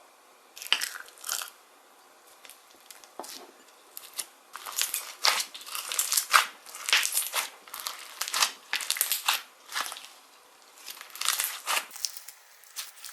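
Handmade slime being squeezed and kneaded by hand close to the microphone, giving irregular crackling crunches, sparse at first and thickest in the middle.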